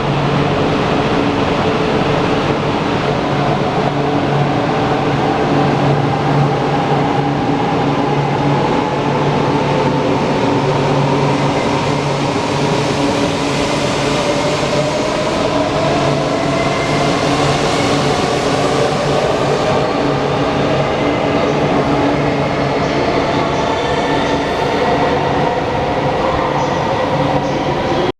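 Shinkansen bullet train at a station platform: a steady running hum with an electric motor whine that rises slowly in pitch over several seconds as the train gathers speed.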